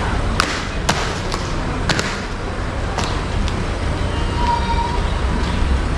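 Steady outdoor background noise with a low hum, broken by several sharp knocks at uneven intervals and a short high tone about four and a half seconds in.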